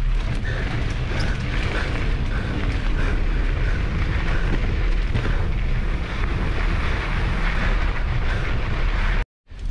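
Mountain bike riding fast over a rough dirt singletrack, heard from a camera on the bike: a steady low rumble of tyres and wind on the microphone, with rattling over the bumps. The sound cuts out for a moment near the end.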